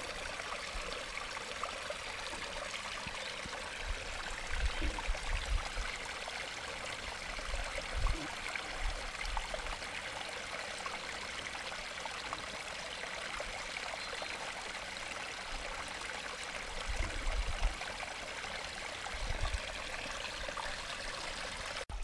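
Small rocky stream trickling and babbling over stones, a steady water sound. A few brief low rumbles come through now and then.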